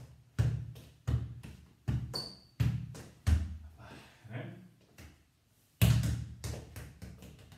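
A football being kept up (juggled) off the foot and knee: dull thuds of the ball, about one every two-thirds of a second. The kicks break off for a moment past the middle, when the ball is caught, then start again with a loud thud.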